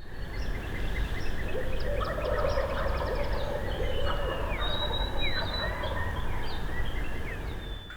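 A wild turkey gobbling, one rattling call starting about a second and a half in, over many small songbirds chirping and whistling, with a low rumble underneath.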